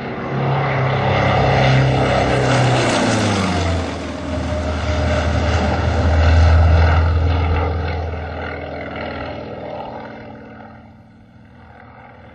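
Propeller-driven plane flying past. The engine drone drops in pitch about three to four seconds in, is loudest a little past halfway, then fades away.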